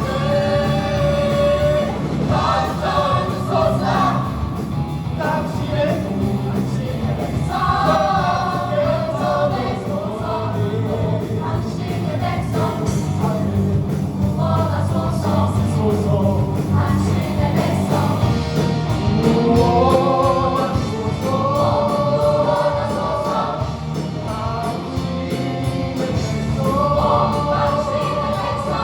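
Choir singing a gospel-style worship song over a steady instrumental backing.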